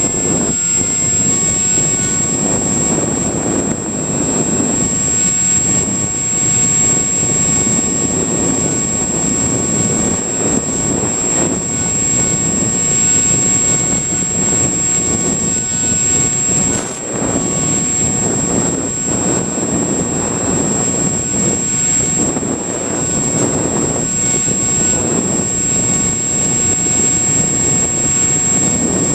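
Rushing wind and the steady whine of a Multiplex EasyStar's electric pusher motor and propeller, heard from the model plane in flight, with a constant high-pitched electronic tone over it. The noise dips briefly once, about midway.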